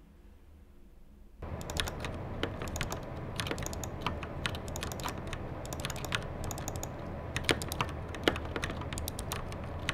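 Rapid, irregular clicking of keys on a backlit computer gaming keyboard during gameplay, starting suddenly about a second and a half in.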